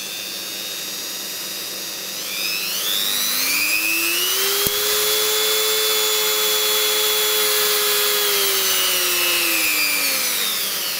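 Ryobi EHT150V rotary tool with a flexible shaft attached, running with no load. Its motor whine rises in pitch about two seconds in, holds steady at high speed, then falls back near the end. A single sharp click comes about halfway through.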